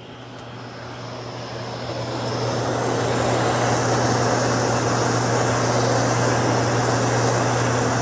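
Handheld propane torch burning steadily, its flame hissing as it melts a stick of seaming wax, over a steady low hum. The sound swells in over the first few seconds and then holds level.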